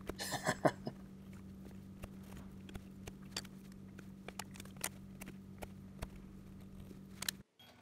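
Scattered light clicks and taps of a ruler, pencil and small Micarta blocks being handled on a wooden workbench, over a steady low hum; the sound cuts off near the end.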